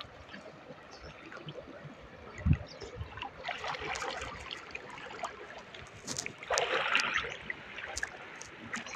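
Water splashing as someone wades through a shallow stream, in two bursts, one a little before halfway and a louder one past the middle. A single low thump about two and a half seconds in.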